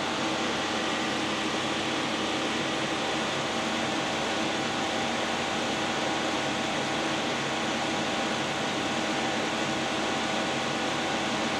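Electric radiator cooling fan running at full speed over the 2015 Chevy Cruze's 1.4-litre turbo four-cylinder idling smoothly: a steady, even noise with several faint steady hums. The fan is maxed out because the mass airflow sensor is unplugged and the engine computer has set codes.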